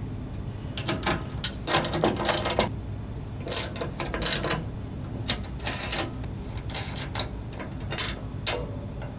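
Ratcheting socket wrench clicking in short, irregular runs as the bolts holding a snow blower's skid shoe are loosened, with some metal clinks.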